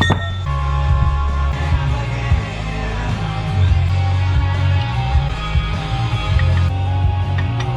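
Background rock music with guitar and a heavy bass line.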